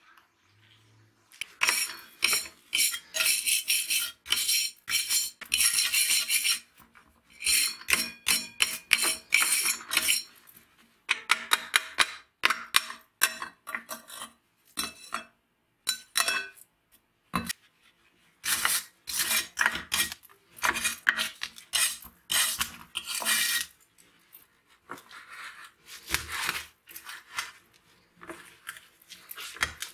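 Rusty steel saw blade and blade guard of an old angle grinder being handled and worked loose by hand: metal clinking and scraping in several bursts of quick strokes, with short pauses between them.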